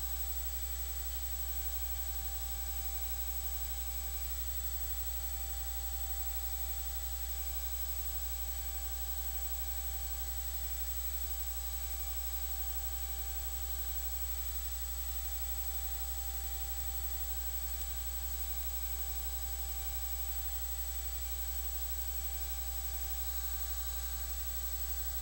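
Steady electrical hum with hiss and a faint high whine, unchanging throughout, with no arena sounds heard.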